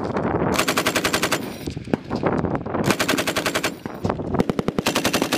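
M240B 7.62 mm belt-fed machine gun firing three bursts of automatic fire, each about a second long, with short pauses between them.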